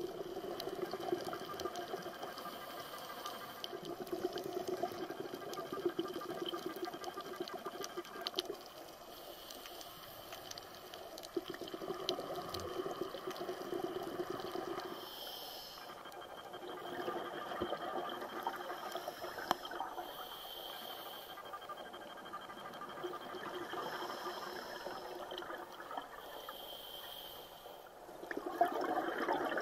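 Underwater recording of bubbling, rushing water that swells and fades every few seconds, with some hiss, growing louder near the end.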